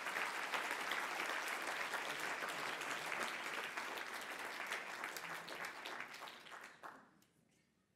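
Audience applauding steadily. The applause dies away about seven seconds in, with a few last claps.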